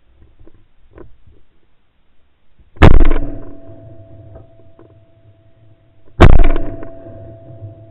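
Beretta 687 over-and-under shotgun fired twice at clay targets, about three and a half seconds apart, each shot a sharp report that trails off over about a second.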